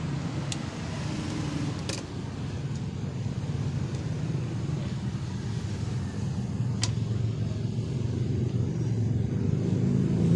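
A steady low mechanical rumble that grows louder toward the end, with a few faint sharp clicks.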